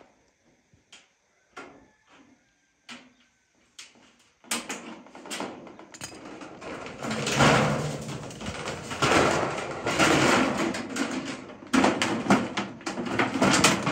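Corrugated metal roofing sheets rattling and scraping against a concrete floor as they are handled and stepped on. A few soft clicks come first, then from about four seconds in a dense, continuous clatter.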